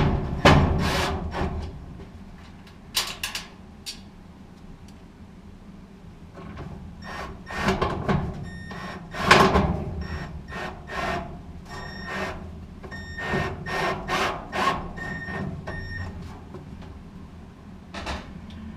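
Handling noise from reassembling a GE gas dryer: irregular knocks and clicks of metal and plastic parts, with scraping and rubbing in between, as screws are fitted. The knocks come thickest right at the start and again a little before and after the middle.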